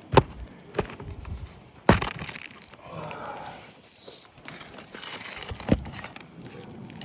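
Steel pry bar prying roofing nails out of asphalt shingles: a few sharp metal knocks, with gritty scraping between them.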